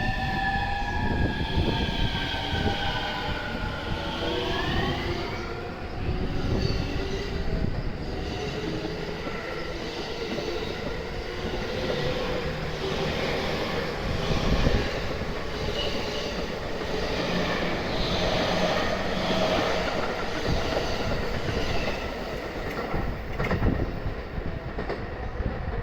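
JR East E231 series electric train pulling out and gathering speed: its traction motors whine in tones that fall and then rise in the first few seconds, followed by steady running rumble and wheels clacking over the rail joints.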